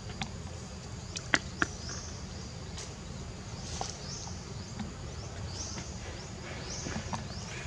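Forest ambience: a steady low rumble with a series of short, high chirps that slide downward, coming about once a second. Two sharp clicks stand out about a second and a half in.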